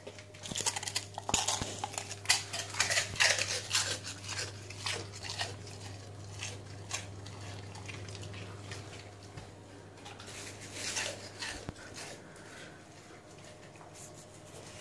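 Rottweiler crunching and chewing prawn crackers: rapid crisp cracks, densest in the first few seconds and again about eleven seconds in, with quieter chewing between.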